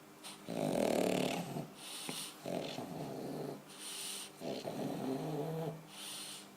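A bulldog snoring: three rattling snores about two seconds apart, each followed by a short hiss. Snoring like this is typical of the obstructed upper airway of brachycephalic breeds, with an overlong soft palate.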